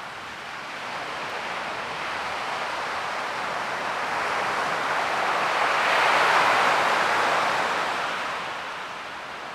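Ocean surf: a wave swells to a peak about six seconds in, then washes back and fades.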